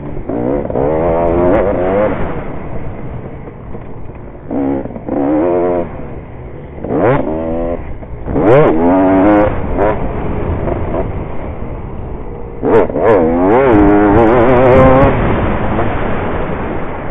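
Small off-road racing engine revving hard and easing off over and over, its pitch climbing through each burst of throttle and then dropping, about five times.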